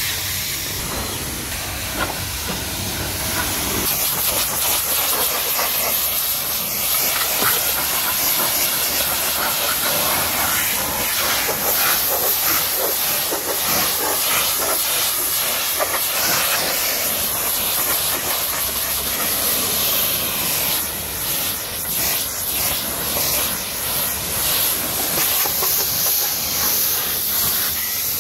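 Pressure washer jet spraying against a car's doors and lower body panels: a steady hiss that gets a little louder about four seconds in.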